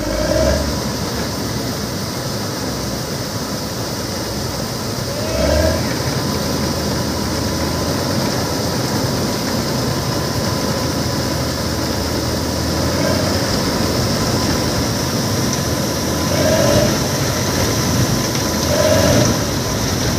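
Combine harvester running steadily while it unloads threshed wheat through its unloading auger: a loud, continuous machine noise with a thin steady whine, swelling briefly louder a few times.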